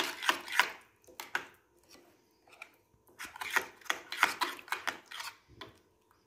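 Spoon stirring a thick yogurt-and-spice marinade in a glass bowl, scraping against the bowl in quick repeated strokes: one run in the first second, a pause, then a longer run from about three seconds in.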